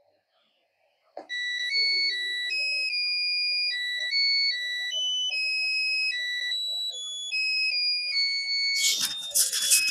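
A music-IC melody picked up by a handheld AM radio and played through its small speaker: a simple tune of high, electronic beeping notes that starts about a second in. Near the end a loud crackle of static swamps it, interference from a wireless microphone brought too close to the radio.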